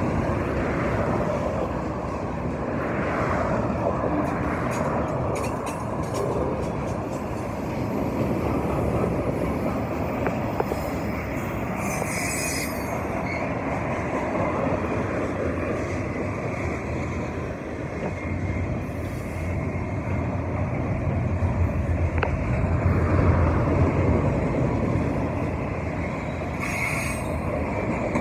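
Double-stack intermodal freight train's well cars rolling steadily past, steel wheels rumbling and clattering on the rail, with a couple of brief high wheel squeals.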